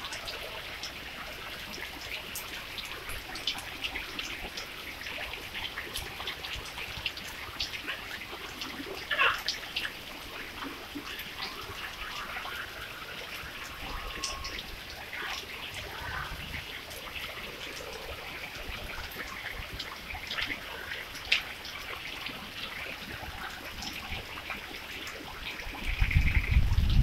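Steady rain falling on a wet road and puddles: many small drop ticks over an even hiss. Near the end a loud low rumble comes onto the microphone.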